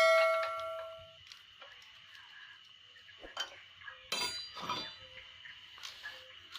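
Metal tools and engine parts clanking on a workbench. A clang rings on and fades over about a second, then come light taps and clicks, and a second metallic clink with a short ring about four seconds in. A faint steady high tone runs underneath.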